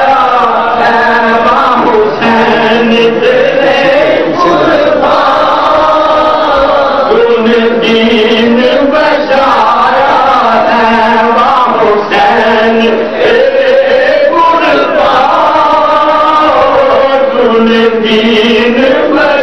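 A man's voice chanting in a melodic, sung recitation style, with long held notes that rise and fall in phrases of a few seconds each.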